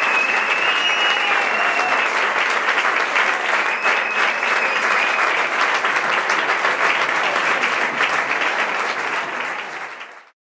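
Audience applauding and cheering after a performance, the clapping fading out just before the end.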